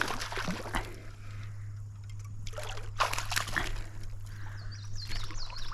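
Water splashing and sloshing in two spells as a big hooked fish thrashes at the surface while being landed.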